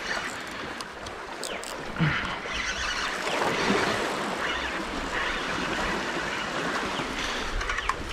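Waves and water sloshing with wind on the microphone, as an even rushing; a few faint clicks about one and a half seconds in and a light knock at about two seconds.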